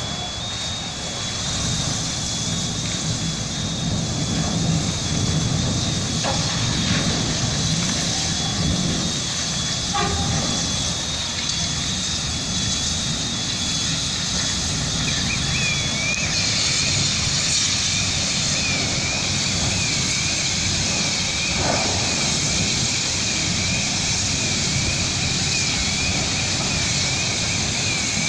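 Large fire burning through a vehicle repair workshop: a steady, loud roar with a few sharp pops. About halfway through, a warbling alarm tone starts and keeps going.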